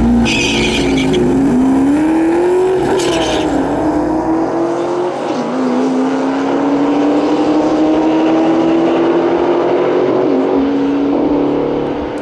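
Turbocharged Ford Mustang GT V8 and a second Mustang launching down a drag strip at full throttle, the engine note climbing through the gears and dropping at each of about four upshifts, with brief high hissing near the launch and at the second shift. The sound starts to fade near the end as the cars pull away.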